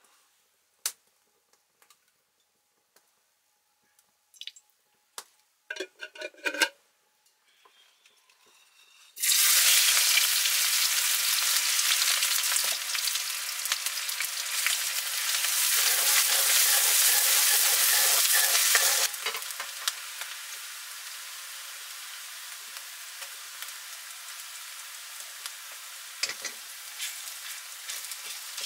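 A few light utensil clinks and knocks, then about nine seconds in food goes into hot oil and a loud sizzle starts suddenly. After about ten seconds it settles to a quieter, steady frying sizzle, with a few small knocks near the end.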